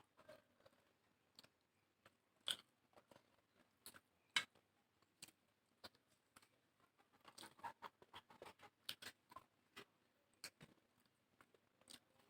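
Close-miked chewing and mouth sounds of a person eating a rice meal: faint, irregular wet clicks and smacks, with two sharper clicks in the first half and a busier run of chewing a little past the middle.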